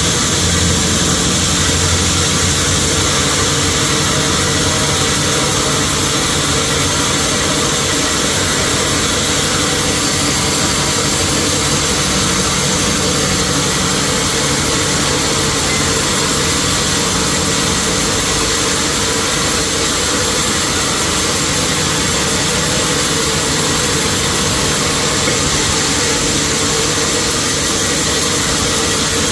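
Sawmill machinery running steadily, a continuous motor hum under a broad hiss.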